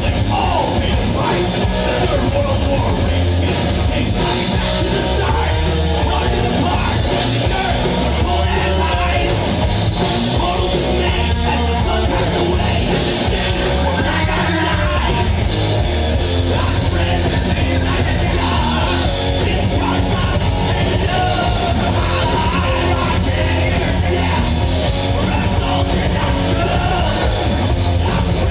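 Live heavy metal band playing loudly, with a singer yelling and singing over the band.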